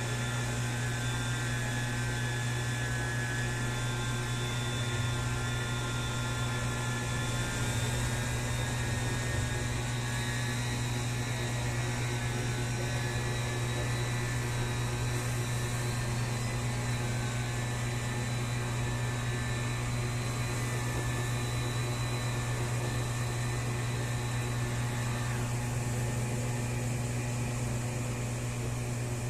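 Turbine Wash mini portable washing machine running continuously as a mixer, its small motor and impeller churning a thickening dishwashing-liquid batch: a steady hum with a high whine that drops slightly in pitch about eight seconds in.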